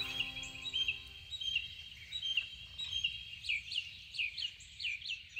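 Wild birds chirping and singing, a run of quick, repeated downward-sweeping notes standing out about halfway through. A held music chord fades out in the first second or so.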